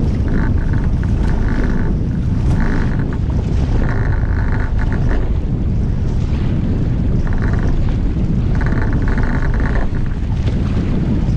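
Strong wind buffeting the microphone aboard a Sprint 15 catamaran under sail, with water rushing past the hulls. A higher whistling tone comes and goes several times.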